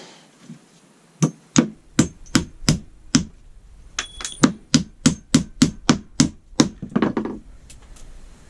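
Hammer blows in quick runs, about three strikes a second, with a short pause about three seconds in.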